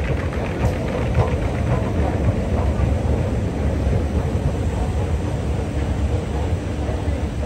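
Long metro-station escalator running steadily, a continuous low rumble with a faint even hum above it.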